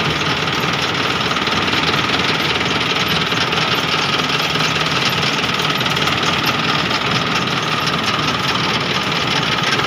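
Machine van's engine running steadily, a fast, even clatter.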